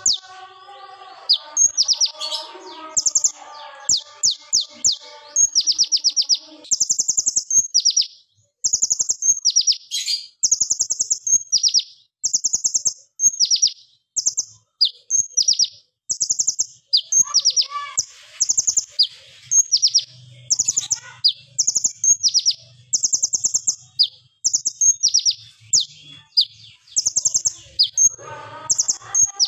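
Purple-throated sunbird (kolibri ninja) singing a sharp, loud chattering song: quick bursts of rapid high notes repeated over and over with short gaps. A lower warbling runs under it in the first few seconds and again near the end.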